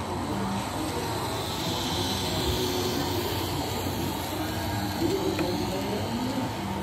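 A model train running past on the layout track, its running noise swelling and then fading about halfway through, over a steady background of voices in a hall.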